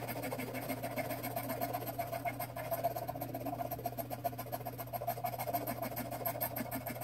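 Scratch-off lottery ticket being scratched off in quick, short, rapid strokes on a wooden desk.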